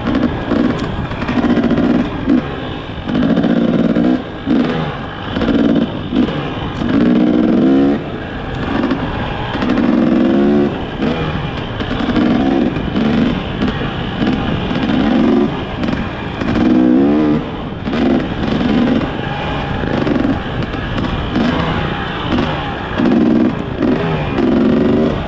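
Dirt bike engine revving up and down over and over as it is ridden, the throttle opened and closed every second or two.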